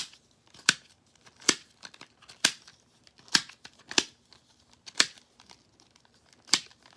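Plastic puzzle ball fidget toy being twisted and handled, giving a series of sharp clicks, roughly one a second at uneven intervals.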